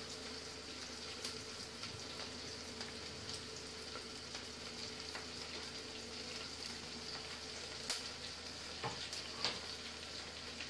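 Hot oil sizzling steadily in pans of South Indian tempering (mustard seeds, urad dal, chana dal and onions) as curry leaves are dropped in. A couple of sharp pops come near the end.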